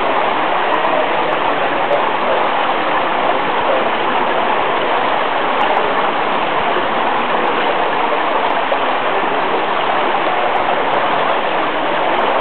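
Steady rushing water noise of an indoor swimming pool at the poolside, even and unbroken.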